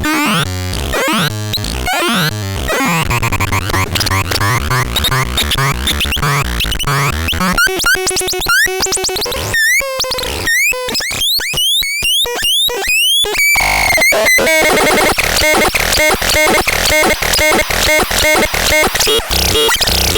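Harsh, glitchy electronic synthesizer noise: chopped tones and stuttering fragments, with quick rising and falling pitch sweeps broken by short gaps about halfway through, then a fast, even pulsing toward the end.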